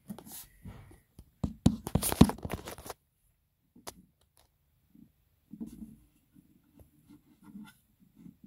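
Rustling, scraping and knocking of fingers handling the phone that is filming, with a cluster of sharp loud scrapes about two seconds in. A few soft low thuds follow in the second half.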